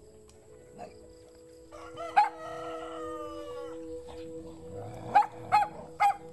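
A rooster crows once, a long call that starts about two seconds in and falls in pitch. Three short, sharp calls follow near the end.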